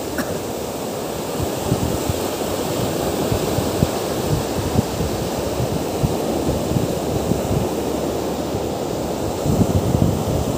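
Surf breaking and washing up a sandy beach in a steady rush, with wind buffeting the microphone in low gusts that grow stronger near the end.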